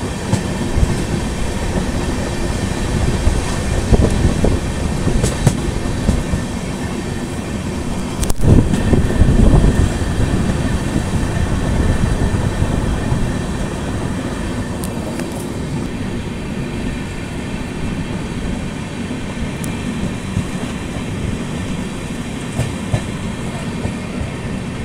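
Passenger train coach running on the rails, heard from its open doorway: a steady rumble of wheels on track with scattered clicks, louder for a couple of seconds about eight seconds in and quieter through the second half.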